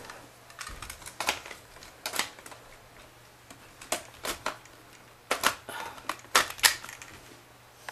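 Clear plastic airsoft magazines being handled, giving a dozen or so sharp, irregular clicks and knocks, several in quick pairs.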